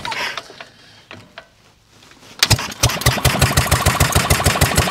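Cold start on choke of a 1930s Dennis Z-type mower engine, hand-cranked with its starting handle. A couple of seconds of cranking clicks come first; then the engine catches and runs with an even beat of about six firing pulses a second.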